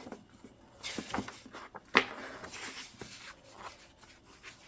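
Paper rustling as printed album inserts (synopsis notes) are handled and shuffled, with one sharp tap about two seconds in.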